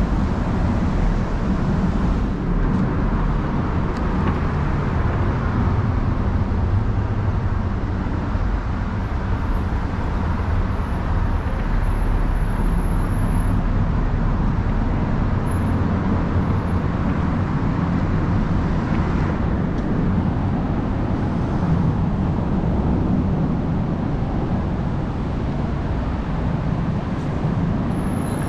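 Steady rumble of road traffic on the bridge deck overhead, with no single vehicle standing out.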